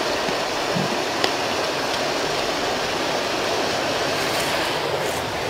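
Steady rushing of flowing river water, an even hiss with one small click about a second in.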